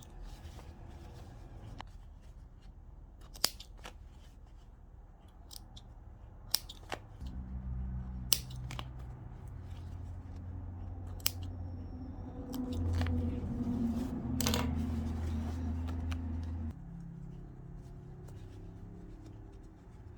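Scissors snipping threads, a handful of separate sharp clicks spread out, while unpicking the stitching of a jeans zip. A steady low hum sets in about a third of the way through and cuts off suddenly after about ten seconds.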